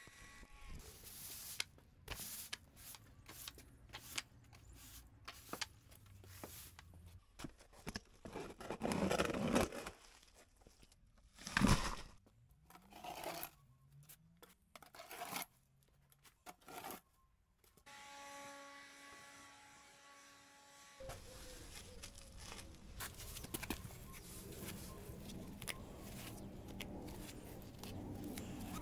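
Broom and shovel scraping and sweeping up wet leaves and grit on concrete paving slabs, in quick irregular strokes with a loud knock near the middle. Later, gloved hands tear weeds out from between the slabs, with a steady rustle.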